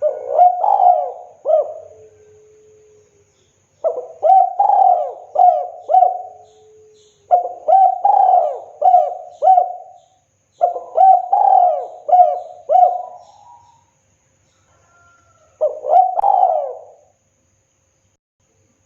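Spotted dove cooing its song: five phrases of several throaty coo notes each, a second or two apart.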